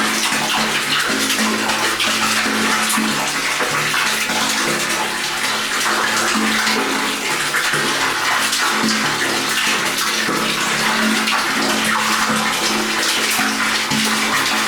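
Water filling a tank: a steady, continuous rush of pouring and splashing water, with a wavering low tone underneath.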